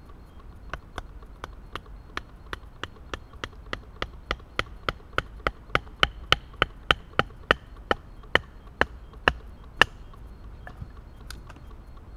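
A wooden baton striking the spine of a Mora Bushcraft Black knife, driving the blade down through a piece of wood to split it (batoning). Sharp knocks about three a second, getting louder toward the middle and stopping about ten seconds in.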